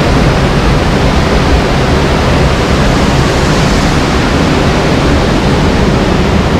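Waterfall's falling water: a loud, steady rushing noise.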